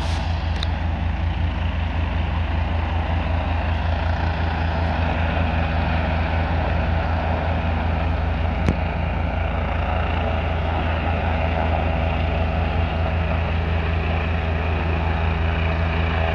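AgustaWestland AW169 air ambulance helicopter running close by, its rotor blades beating in a fast, steady low pulse over a constant turbine rush.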